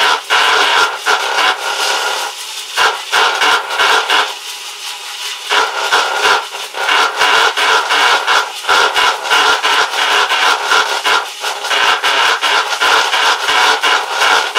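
Tacx T1100 Galaxia bike rollers running under a rider and making a loud, harsh noise with a steady tone in it, swelling and dropping in uneven surges with a few brief lulls. The noise is a fault that developed after about 160 miles of use, with its cause not yet known.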